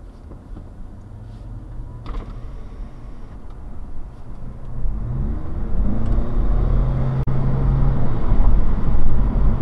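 Car engine and road rumble heard from inside the cabin, getting louder about halfway through as the engine note rises while the car accelerates.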